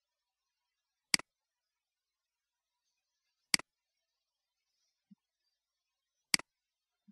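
Three computer mouse clicks, spaced two to three seconds apart, each a sharp click followed at once by a softer second tick, as the button is pressed and released.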